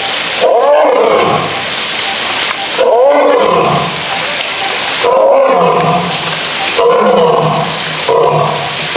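Male lion roaring in a bout: about five loud, pitched roars, each lasting around a second at first, then growing shorter and closer together toward the end.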